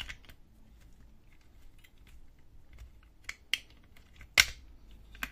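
Hard plastic parts of an HP Color LaserJet CP3525 fuser unit clicking and knocking as a plastic cover is handled and pressed into place: several sharp clicks, the loudest about four and a half seconds in.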